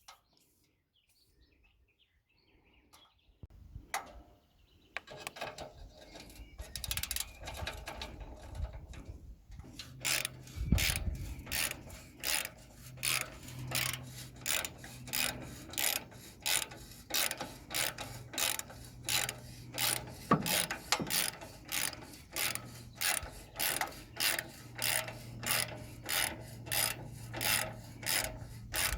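A socket ratchet worked in steady strokes, clicking about twice a second, as a nut is tightened, over a low steady hum. The first few seconds hold only scattered handling sounds.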